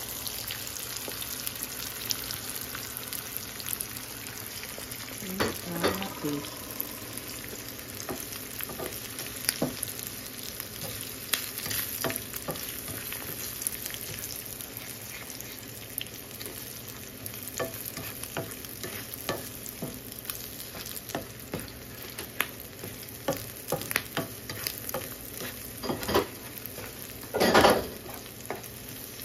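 Beaten eggs with diced ham, onion and green chile sizzling in oil in a skillet, with a slotted spatula scraping and tapping against the pan as the eggs are stirred. A louder scrape against the pan comes near the end.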